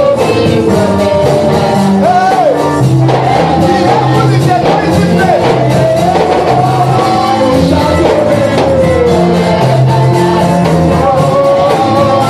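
Gospel praise-and-worship music: a voice sings a sliding melody over a steady beat and a stepping bass line.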